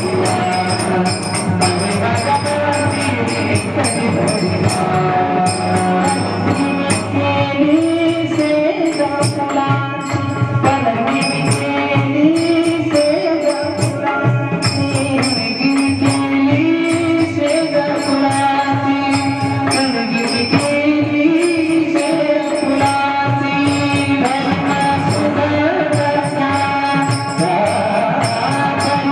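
Marathi bhajan music: a stepping melody carried over a steady, fast rhythm of drum strokes and small metallic jingles.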